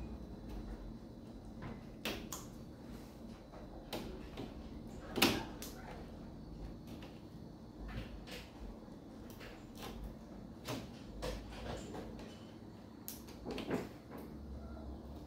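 Irregular scrapes and clicks as a hooked knife and fingers work along the metal frame of an LCD TV panel, lifting off adhesive tape. The loudest scrape comes about five seconds in, and another near the end.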